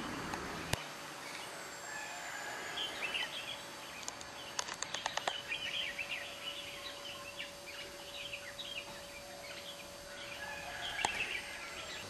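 Birds chirping and twittering in a garden, with a quick run of sharp clicks about four and a half seconds in. A faint steady tone sets in about halfway and holds to the end.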